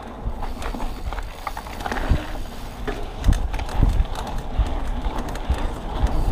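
Full-suspension mountain bike, a 2021 Polygon Siskiu T7, rattling and clattering as it rolls fast over a cracked, rough trail surface, with irregular knocks from the bike's parts over a steady low rumble of tyres and wind on the camera microphone. The knocks get busier and louder about halfway through.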